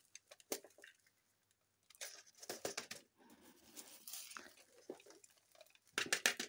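Handfuls of loose potting soil sprinkled into a flowerpot around a plant's roots. The soil patters and crumbles in several short, irregular bursts, with rustling as the hand digs more soil out of a plastic bag.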